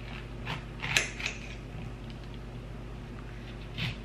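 A kitchen knife cutting lemons in half on a granite countertop: a few short cuts and knocks of the blade, the sharpest about a second in, over a steady low hum.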